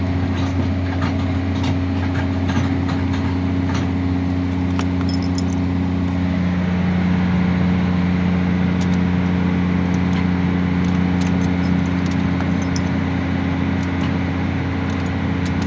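An engine idling steadily, a low even drone that holds the same pitch throughout, with faint scattered ticks over it.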